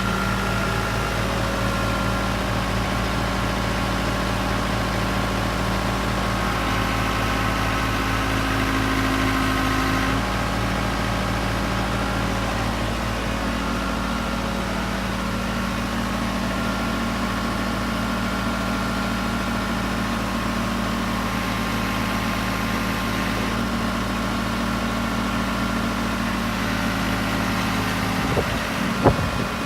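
Backhoe engine running steadily while lifting, its tone shifting briefly under load a few seconds in. Near the end the low drone drops away and a few sharp knocks sound.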